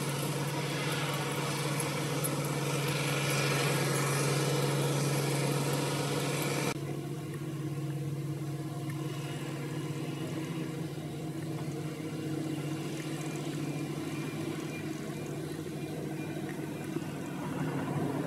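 Wheel loaders' diesel engines running steadily, a Hitachi ZW310 among them. About seven seconds in the sound cuts abruptly to a quieter, more distant engine hum.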